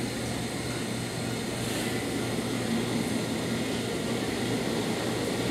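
Distant rumble of an approaching New York City subway train in the tunnel, growing slowly louder, over a steady low hum.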